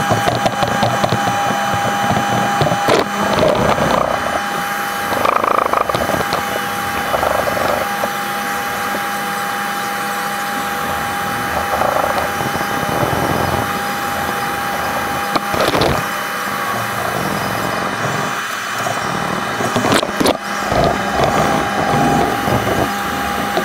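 Hand sanding of a wooden knife handle up against the metal bolster: short, scratchy rubbing strokes of abrasive on wood, coming in bouts, over a steady hum.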